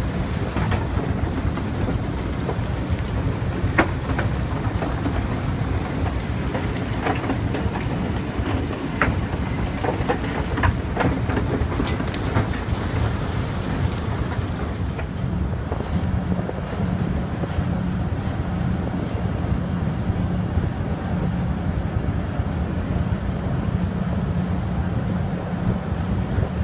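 Bucket wheel excavator at work: a heavy low rumble of the turning wheel, with rocks and spoil knocking and clattering as the buckets cut and spill. About halfway through the clatter stops and a steadier, duller low drone of the machinery and its conveyor goes on.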